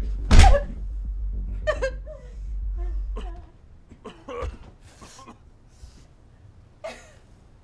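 A heavy thud right at the start over a low music drone that stops about three and a half seconds in, then a woman's gasping, sobbing breaths.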